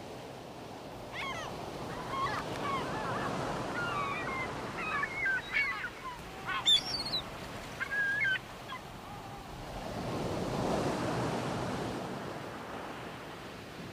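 Seagulls calling in a scattered series of short, gliding cries, with one sharper, louder cry about halfway, over steady surf and wind. The calls stop after about eight seconds, and a swell of surf rises and fades near the end.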